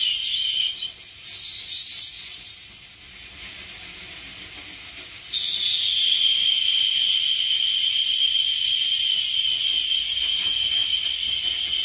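Electronic noise score: a high, steady hissing whine with warbling sweeps above it for the first few seconds. It drops back to a quieter hiss, then the high whine cuts back in suddenly about five seconds in and holds.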